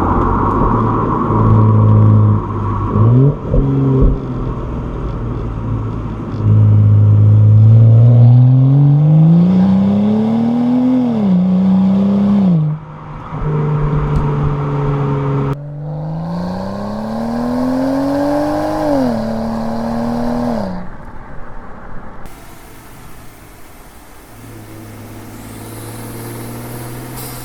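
A 2011 BMW 335i's N55 turbocharged straight-six with its stock exhaust, accelerating. Twice the engine note climbs in pitch for a few seconds and then drops at an automatic upshift. Between the pulls and near the end it runs at lower, steadier revs.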